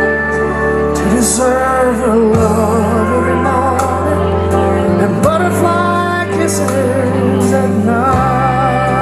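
Slow background music: a wavering, sliding melody line over sustained bass notes that change about every three seconds.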